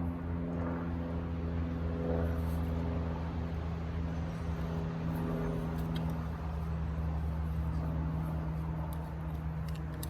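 Chainsaw in a Granberg edging mill running at a steady high speed, ripping lengthwise through a log.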